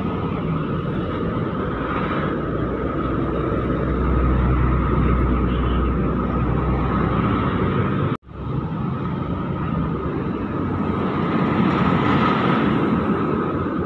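Heavy trucks passing close on a road: diesel engine drone and tyre noise, swelling as each truck goes by, the last a container tractor-trailer. A brief break in the sound about eight seconds in.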